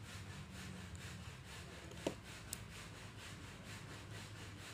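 Small flat-blade screwdriver turning a tiny screw in a Dunhill Rollagas lighter's metal body: faint, fast, even scraping strokes, with a sharp click about two seconds in.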